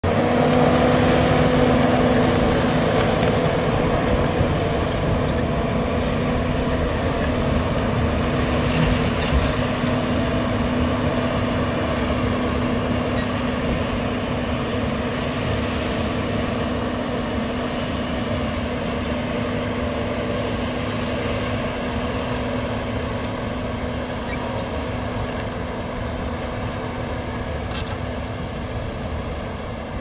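John Deere 850K crawler dozer's diesel engine running steadily with a low rumble as it pushes sand, slowly growing fainter as the machine works away.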